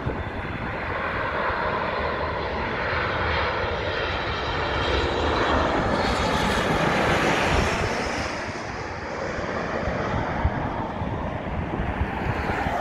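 Boeing 737 MAX 8 airliner on final approach passing low overhead: the rush and whine of its CFM LEAP-1B turbofans at approach power. The sound swells to its loudest about six to eight seconds in, then eases off with the whine falling in pitch as the jet heads down to the runway.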